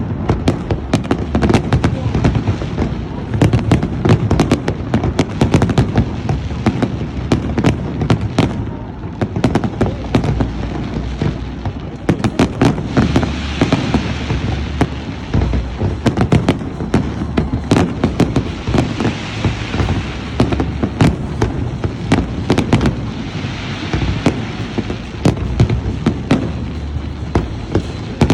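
Fireworks display: a dense, continuous barrage of sharp bangs and crackles over a steady low rumble of booms.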